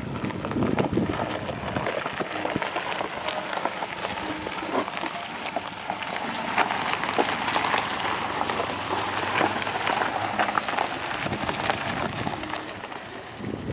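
Steady crunching and crackling of gravel and dirt, with many small sharp ticks throughout.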